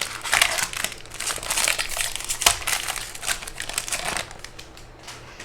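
Plastic trading-card pack wrapper crinkling as it is opened by hand, a dense run of crackles with one sharper snap, dying down about four seconds in.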